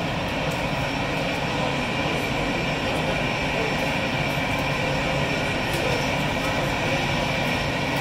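Airbus A319 jet engines at low taxi power as the airliner taxis in close by. A steady rushing noise with a high whine held throughout.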